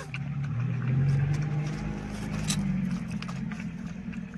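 A motor vehicle's engine running, loudest about a second in and then slowly fading, with scattered small clicks of puppies eating.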